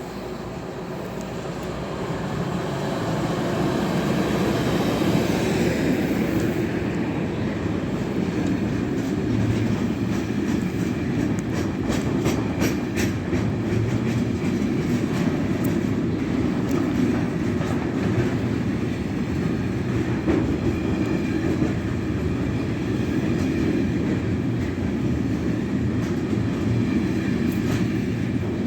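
A train running past on the line, its sound building over the first few seconds and then holding steady, with the wheels clicking over rail joints.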